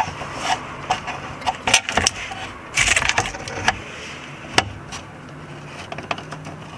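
Irregular metallic clicks, knocks and short scrapes as a handbrake cable and its rubber bushing are worked onto the cable bracket, catching against the heat shield.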